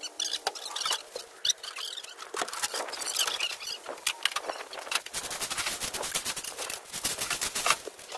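Dry leaves rustling and crackling under a leaf rake and footsteps, in a rapid run of scrapes and crunches that thickens in the second half.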